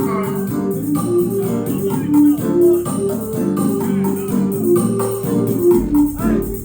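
Roots reggae instrumental played over a sound system: a keyboard or organ melody over a steady shaker and hi-hat rhythm, with deep bass coming in strongly near the end.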